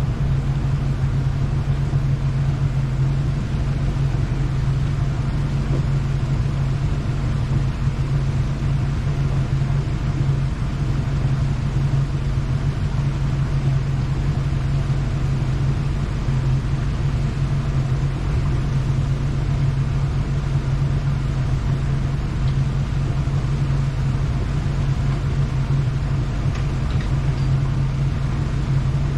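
Boat engine idling steadily, a low, even hum that does not change.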